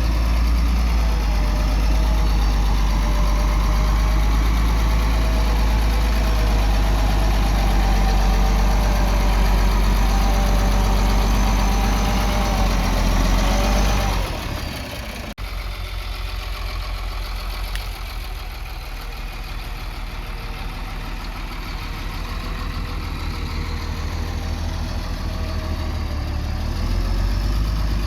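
Diesel engine of heavy earthmoving machinery running steadily. About halfway through, the level drops abruptly to a quieter run, which builds up again near the end.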